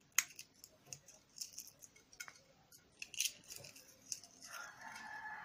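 Whole dried red chillies being crushed between the fingers over a plate: scattered dry crackles and crinkles as the brittle pods break apart. A steady high tone comes in near the end.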